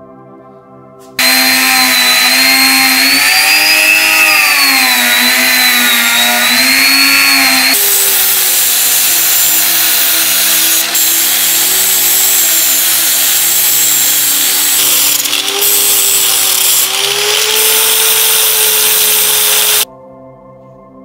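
Handheld electric power tool running under load on metal, its pitch wavering up and down as it is worked against the piece; it starts about a second in, changes to a higher pitch about eight seconds in, and cuts off near the end. Background music plays throughout.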